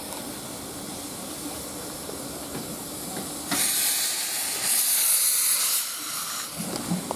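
Small saddle-tank steam locomotive no. 1340 Trojan moving off with a low rumbling run. About three and a half seconds in, a loud hiss of steam from its cylinder drain cocks sets in for about three seconds.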